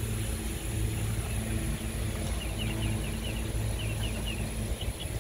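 A steady low mechanical hum runs throughout, with quick runs of short high chirps from about halfway through.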